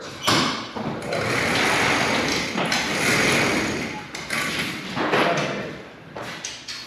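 Hiss of air rushing from a hose-fed wand: one long blast of about three seconds, then shorter spurts, with a few knocks.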